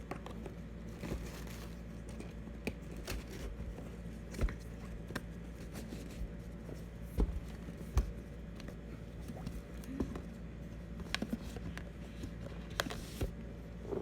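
Packaging being handled: a small box and its wrapping rustling and crinkling, with scattered light taps and clicks, the sharpest a little past the middle.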